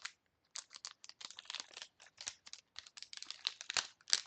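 A potato chip bag crinkling as it is handled just after being torn open, in a quick, irregular run of rustles.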